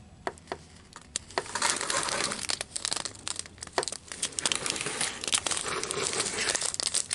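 Thin clear plastic bags of diamond-painting drills crinkling as they are handled. There are a few sharp crackles at first, then steadier crinkling from about a second and a half in.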